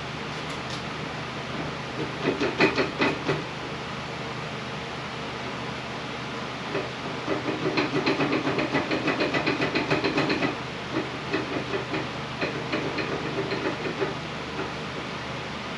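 Rapid mechanical clicking and grinding from the drag car's rear driveline as it is turned, coming in three runs, the middle one longest and loudest, over a steady hiss. The noise is taken as not normal, the sign that something may have broken inside the rear differential.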